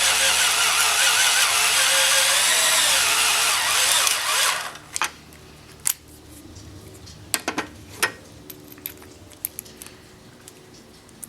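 Cordless screwdriver running at speed, driving a self-tapping screw, its motor whine wavering under load. It stops abruptly about four and a half seconds in, followed by a few sharp clicks and knocks of the tool and screws being handled.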